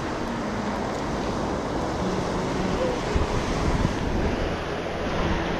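Surf washing onto the beach, mixed with wind buffeting the microphone: a steady, even rush of noise.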